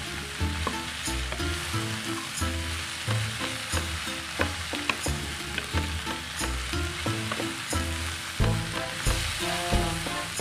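Long beans, carrot and tempeh sizzling as they stir-fry in a wok, with a spatula clicking and scraping against the pan about once or twice a second.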